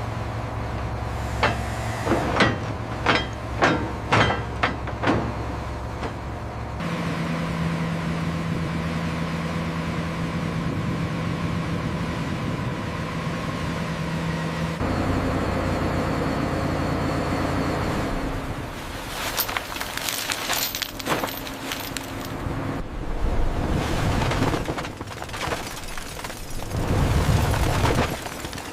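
Heavy machinery running with a steady low hum, broken by series of sharp clanks and knocks and, near the end, heavier thuds. The hum changes abruptly several times.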